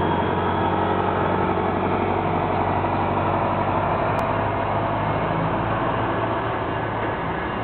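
A large engine running steadily at low revs, a deep even drone that eases off slightly near the end.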